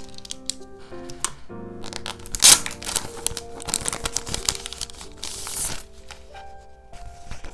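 Gentle background music, with paper rustling and crinkling from journal decorating over it: a sharp crackle about two and a half seconds in and a longer rustle a little after five seconds.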